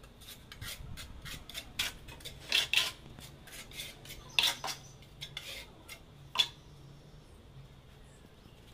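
Steel trowel scraping and clinking on the back of a ceramic wall tile as cement mortar is spread over it: irregular short scrapes with a few sharper clinks.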